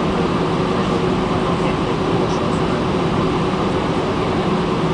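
Airbus A320 cabin noise while taxiing: the jet engines give a steady hum with a constant low tone over an even rush of air, heard from inside the passenger cabin.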